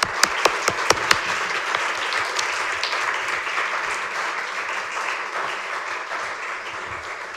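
Audience applauding. A few sharp, close claps stand out in the first second, then it settles into steady clapping that slowly dies away.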